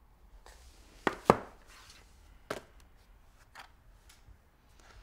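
Laptop lids being shut and handled: a few sharp clacks, two in quick succession about a second in (the second the loudest), then single ones near two and a half and three and a half seconds.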